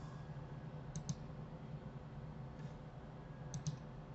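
Computer mouse clicking: two quick pairs of sharp clicks, about a second in and again near the end, over a low steady hum.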